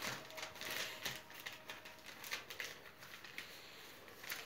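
Sheet of paper rustling and crinkling faintly in irregular little bursts as a paper airplane is folded and creased by hand.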